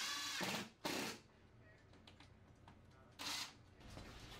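Cordless drill/driver driving a screw to mount a steel electrical junction box to the wall. The motor runs in a whine that stops about 0.7 s in, then in two short bursts, one around a second in and one near the end.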